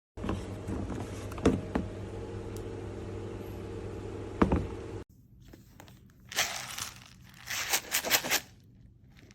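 Steady low hum with a few sharp knocks, then after a cut several short bursts of crinkling and scraping, as of crinkly material or packaging handled by hand.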